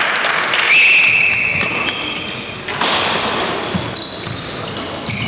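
Badminton being played in a large echoing hall: racquets smack the shuttlecock every couple of seconds, among thudding footfalls and high shoe squeaks on the court floor.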